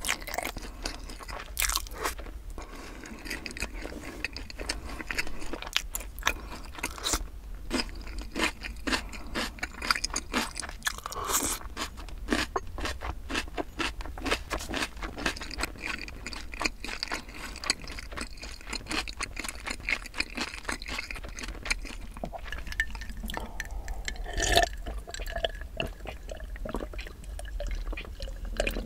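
Close-miked chewing of sauced Korean fried chicken: a steady run of crunches and wet mouth clicks, with one louder knock near the end.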